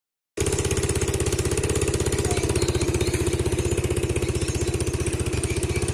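An engine running steadily with a rapid, even pulse, starting just after the opening moment.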